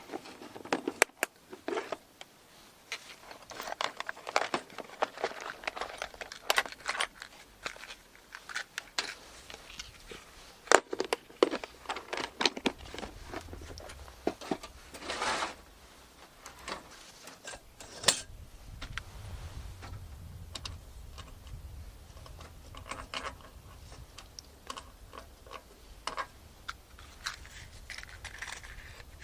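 Small objects being handled: an irregular string of clicks, taps and rustles, joined about two-thirds of the way through by a steady low rumble.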